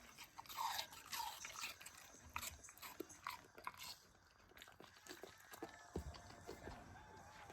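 Golden retriever crunching and chewing a piece of Japanese pear: irregular wet crunches and bites, busiest in the first couple of seconds.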